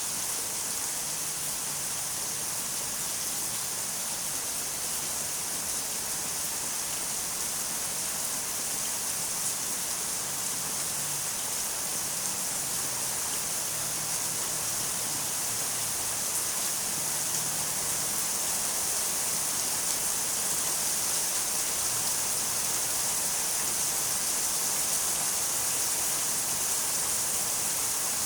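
Steady rain falling, a constant hiss with no breaks or single drops standing out.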